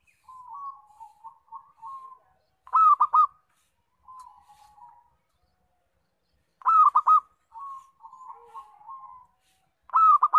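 Zebra dove (local perkutut) singing: a loud, quick three-note cooing phrase repeated three times, about every four seconds, with softer rolling coos between the phrases.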